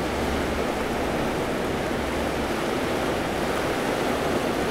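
Fast river flowing over rocks: a steady rush of water.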